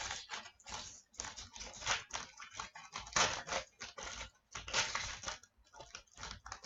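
Trading cards being handled and slid against one another, an irregular run of rustles and scrapes.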